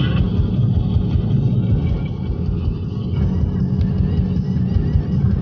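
Car cabin noise while driving on a wet road: a steady low rumble of engine and tyres, with a hiss of tyres on the wet surface.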